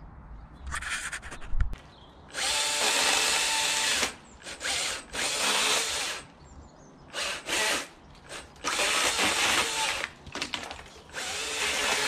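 Stihl HTA 86 battery pole pruner's chain running in about six stop-start bursts, each from a fraction of a second to nearly two seconds long, as it cuts branches from a tree.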